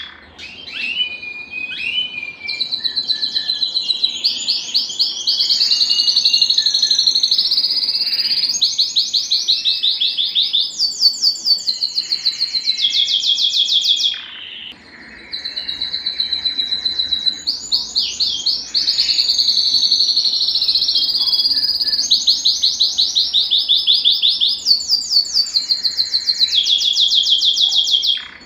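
Male domestic canary singing: phrase after phrase of fast, high trills and rolls, with a short break about halfway through.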